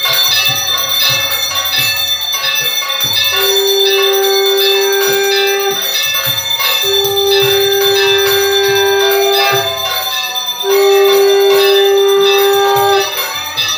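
Hand-held puja bell rung continuously and rapidly for arati, while a conch shell is blown in three long, steady notes starting about three, seven and eleven seconds in, the last one the loudest.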